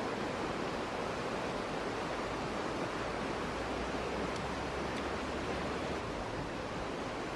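Steady, even outdoor rushing noise, with no distinct events apart from a couple of faint high ticks about halfway through.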